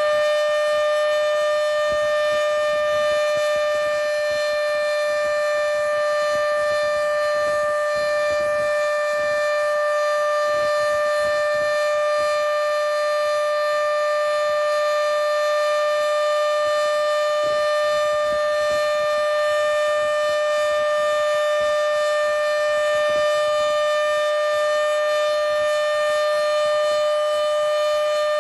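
Modified Federal Signal Model 7B outdoor warning siren sounding a steady alert tone, holding an even pitch and level throughout.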